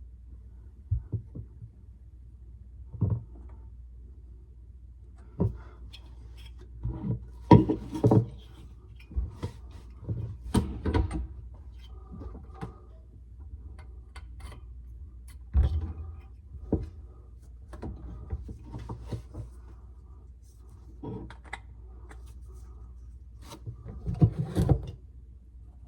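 Irregular knocks, clicks and clatter of objects being handled, over a steady low hum.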